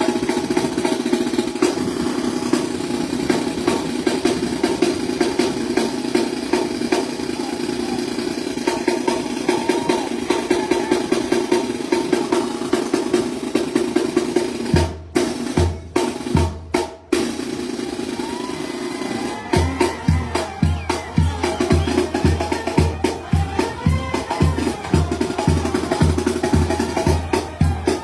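A Sinaloan banda, a brass band with snare and bass drum, playing live. About halfway through the horns drop out for a short stop-start drum break of rolls and low drum hits. Then the band comes back in over a steady pulsing bass beat of about two thumps a second.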